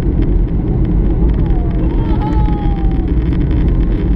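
Steady cabin noise inside a Boeing 737-800 in flight on the descent: an even, loud rumble of its CFM56 engines and rushing air.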